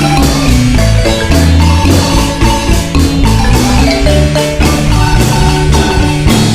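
Marimba music: a quick melody of struck, pitched notes over a steady low bass line.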